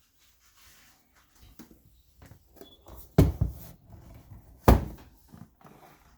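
Two loud thumps about a second and a half apart, with lighter clicks and handling noise around them.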